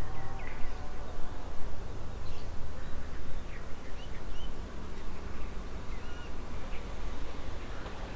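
Birds calling with scattered short chirps over a continuous, uneven low rumble.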